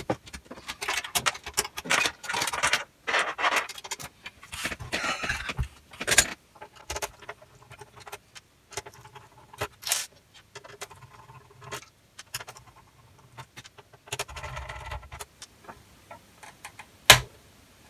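Hands working inside the open metal chassis of a Marantz NR-1501 AV receiver to get its DSP board out: a run of clicks, scrapes and rattles, busiest in the first six seconds, with one sharp click near the end.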